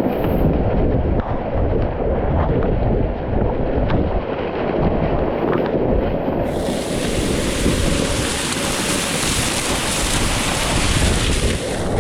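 Wind buffeting the microphone with a heavy, uneven rumble. About halfway through a loud, steady rushing hiss like falling water cuts in, then stops abruptly near the end.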